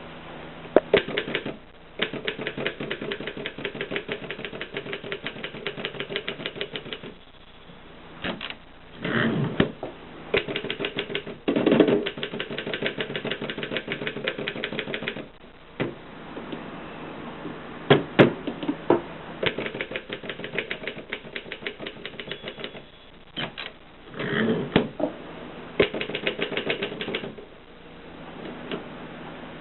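Mercedes 6 typewriter being typed on: runs of rapid key strikes broken by short pauses, with a few heavier clunks among them.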